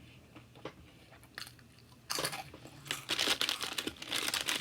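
Close-up crunching of a fried jalapeño popper with a crushed Hot Cheetos crust being bitten and chewed. It is quiet with a few soft clicks for about two seconds, then dense, loud crunching.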